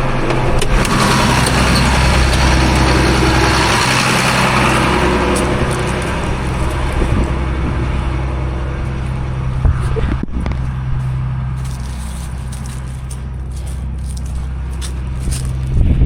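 Cotton stripper's diesel engine running steadily under a broad rushing noise. The rushing is loudest over the first several seconds and fades by about halfway.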